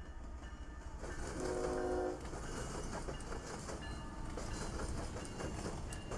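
CSX freight train with diesel locomotives passing, a low steady rumble with wheels clicking over the rails. A short horn note sounds about a second and a half in.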